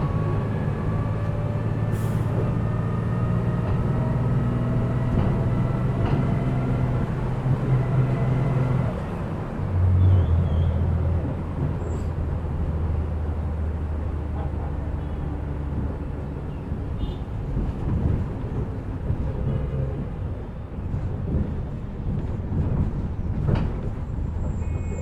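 Inside a moving city bus: the engine hums low while a whine climbs slowly in pitch over the first nine seconds as the bus picks up speed. About ten seconds in the note drops to a lower, steady hum, with road rumble under it and a sharp click near the end.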